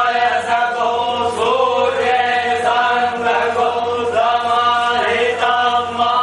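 Hindu devotional chanting: voices singing a mantra in unison, on a steady, gently wavering melody without pause.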